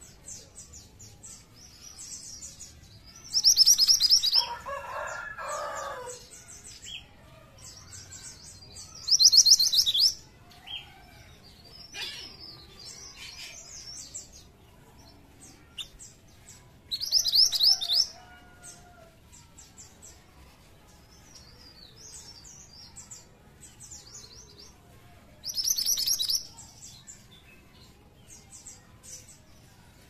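Minivet (mantenan) singing: four loud, rapid, high trilled phrases about eight seconds apart, with a run of softer, thin high chirps between them. A lower call comes just after the first trill.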